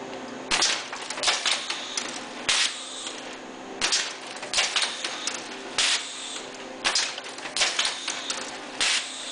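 H100D automatic poly bagger with bag spreaders cycling: repeated sharp clacks and short hissing bursts, about one or two a second, as the jaws and spreader probes move and the bag is sealed and dropped. A steady hum from the machine runs underneath.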